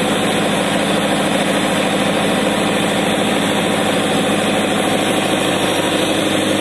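Sonalika 750 tractor's diesel engine running steadily at about 1700 rpm. It is held in second gear against the pulled handbrake as a load test, with the turbocharger's intake hose disconnected so that it runs as a non-turbo engine.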